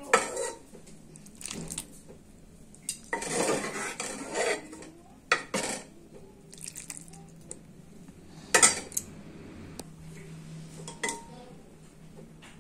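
Metal serving spoon scraping and clinking against the pot and serving bowl as potato-and-pea curry is ladled out. The strokes are scattered and irregular, and the loudest knock comes a little past halfway.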